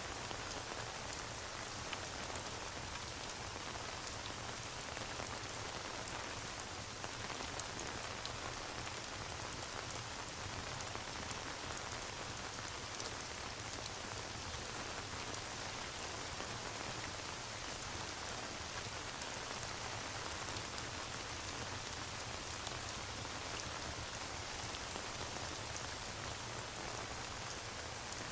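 Steady rain ambience, an even hiss of rainfall, mixed with a crackling fireplace that adds faint scattered ticks.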